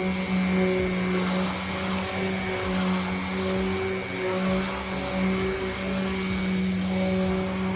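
Harbor Freight power sander running steadily on the Impala's roof panel: a constant motor hum with the hiss of the abrasive on the paint.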